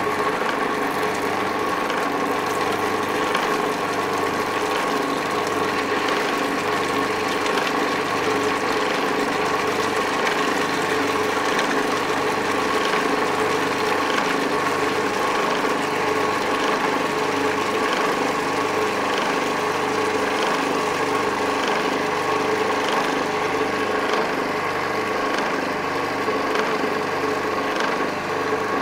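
Magimix Patissier food processor motor running steadily with its mini bowl, the blade blending mayonnaise as oil is poured in through the feed tube. An even, unbroken motor hum.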